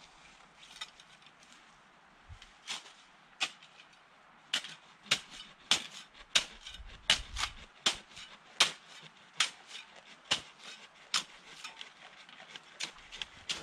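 Sharp cracks of dry spruce twigs and branches being snapped off by hand. A few come at first, then one or two a second from about four seconds in, thinning out again near the end.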